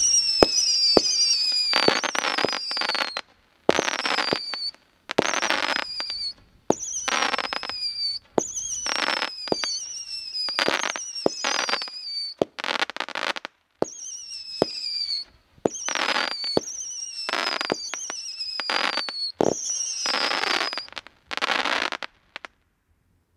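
Fireking 'Cutting Edge' consumer firework going off: a string of about a dozen shots, each a whistle falling in pitch followed by a burst of crackling, one every second or two. It stops shortly before the end.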